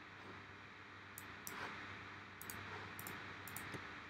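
Faint scattered clicks from working a computer's mouse and keys, a handful over about three seconds, above a low steady hum and room noise.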